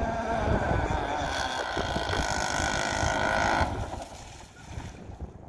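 Small two-stroke gas engine of an RC outrigger boat running at high revs, its pitch wavering slightly, then falling away suddenly a little over three and a half seconds in.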